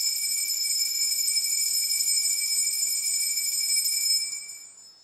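Altar bells rung continuously at the elevation of the consecrated host: a bright, high, shimmering ringing that holds steady, then fades out about four seconds in.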